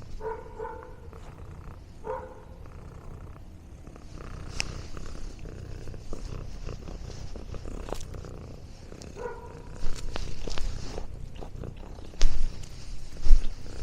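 Domestic cat purring close up, a steady low rumble, with a few brief chirp-like sounds early on and around the middle. Two loud thumps come near the end.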